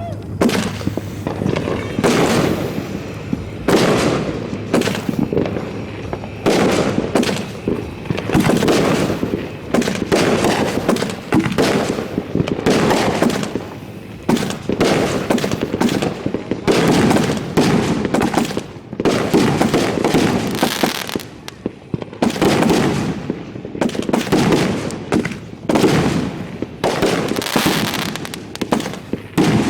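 Fireworks finale barrage heard close to the launch site: shells firing and bursting in rapid, overlapping succession, with crackle between the booms and loudness swelling and dipping every second or two.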